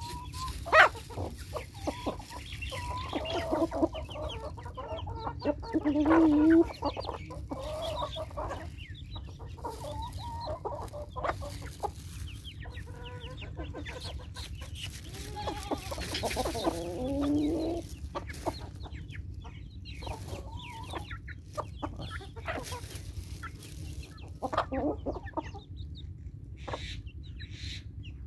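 A flock of domestic chickens clucking as they feed, the calls coming in loose overlapping runs, louder around a quarter and again past halfway. Many short ticks run through it, with one sharp click about a second in.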